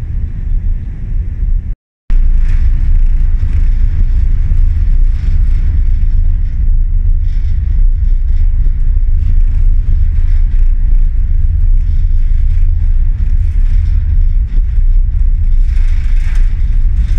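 Loud, steady low rumble on the open deck of a car ferry under way, from the ship's diesel engines and funnel exhaust mixed with wind on the microphone. It drops out for a moment about two seconds in.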